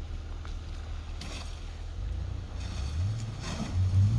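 Off-road vehicle engine running with a low, steady hum, then revving up in two rising steps over the last second and a half as it climbs an icy trail.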